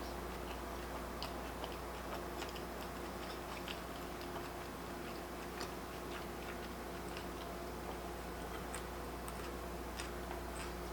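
Quiet chewing of sushi with faint, scattered small mouth clicks, over a steady low hum.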